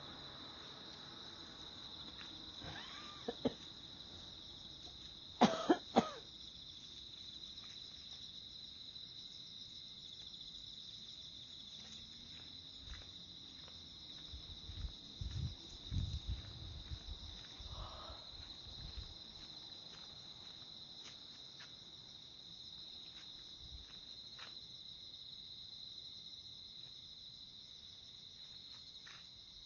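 Steady high-pitched chirring of insects throughout, with three short loud sharp sounds in quick succession about five to six seconds in, and a cluster of low thumps around fifteen to seventeen seconds.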